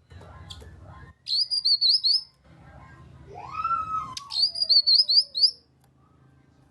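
Cucak kinoi singing two short, rapid high-pitched chattering phrases, with a lower slurred whistle between them that rises and then slides down.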